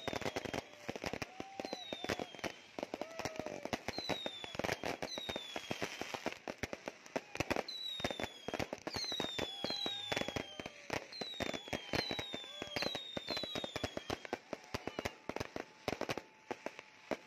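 Fireworks going off: a rapid, unbroken crackle of pops and bangs, with short falling whistles again and again.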